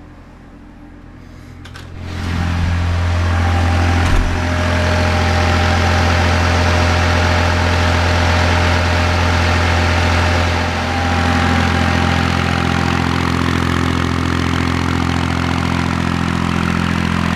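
Kubota B7100 tractor's three-cylinder diesel engine running steadily at working throttle, turning a NorthStar PTO generator under about 4,000 watts of load, a load the tractor is struggling with. It comes in loud about two seconds in, after a quieter electrical hum, with a single knock a couple of seconds later and a slight change in the engine note about halfway through.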